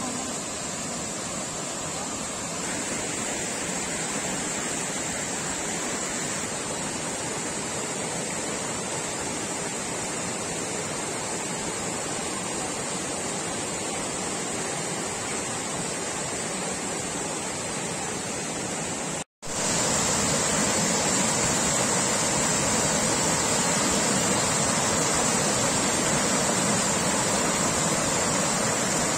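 River water rushing over small rocky cascades into shallow pools: a steady rush that cuts out for an instant about two-thirds of the way through and comes back louder.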